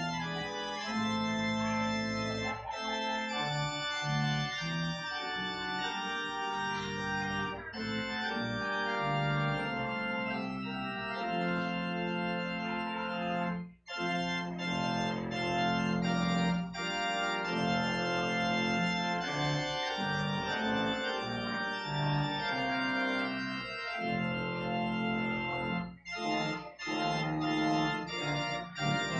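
Organ playing sustained chords with a moving bass line, breaking off for an instant about halfway through.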